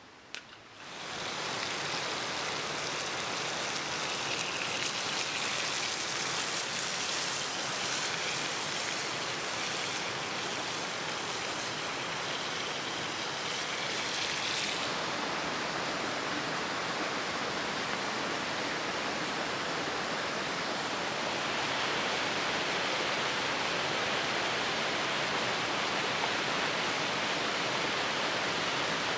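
Trout fillets sizzling in a frying pan over a crackling campfire for about the first half. Then a smoother, steady rush of running water from nearby rapids.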